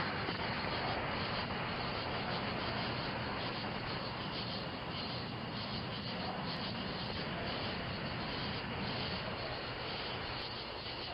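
Steady rushing noise with no distinct events, picked up by a video doorbell's microphone.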